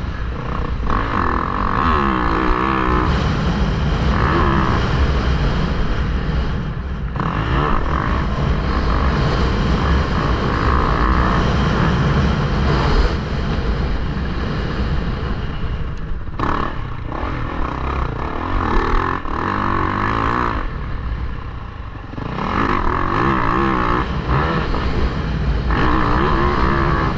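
Yamaha YZ450F four-stroke single-cylinder dirt bike engine being ridden hard, revving up and backing off again and again through the gears, with short drops where the throttle is shut around 7, 16 and 21 seconds in. Heard from a helmet camera, with wind rumble on the microphone.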